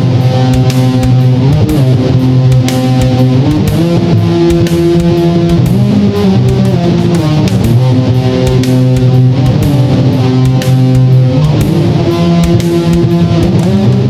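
Heavy metal recording: distorted electric guitar chords, each held and changing about every two seconds, over steady percussive hits.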